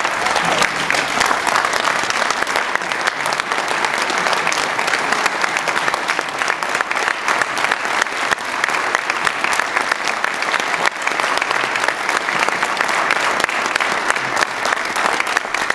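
Audience applause: a large crowd clapping steadily, which stops abruptly at the end.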